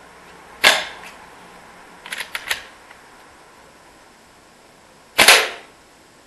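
Airsoft SVD sniper rifle firing BBs into a wooden plank: two sharp shots about four and a half seconds apart, with a quick run of fainter clicks between them.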